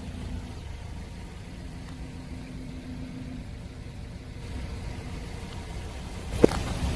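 A car's engine running slowly with a steady low hum as it rolls forward. About half a second before the end, sharp cracks begin as something starts to break under the tyre.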